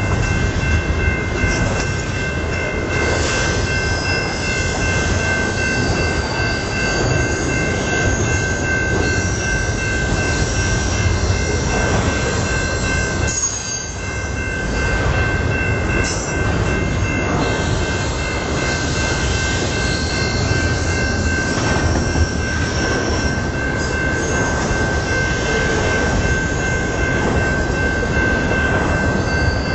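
Double-stack container train rolling by at speed: steady rumble and clatter of the well cars over the rails, with intermittent high wheel squeal. A grade-crossing bell rings steadily throughout, with a brief lull in the rumble about halfway.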